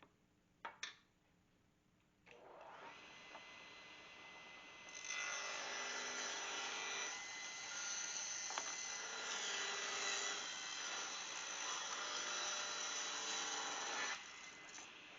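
Delta table saw switched on after a couple of clicks and running with a steady whine. From about five seconds in, the blade rips a thin strip of wood for about nine seconds. The cut ends and the blade keeps spinning.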